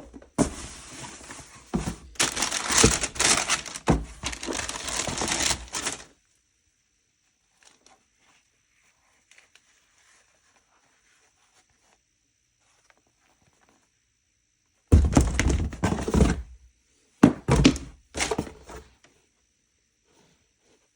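Unboxing handling noise: packaging crinkling and rustling with thuds and knocks for about six seconds. After a long pause, two shorter bursts of crinkling and thumps come near the end.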